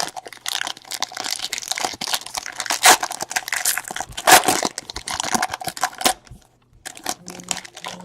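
Crinkly trading-card pack wrapper being torn open and crumpled by hand, a dense rustling crackle that thins out about six seconds in.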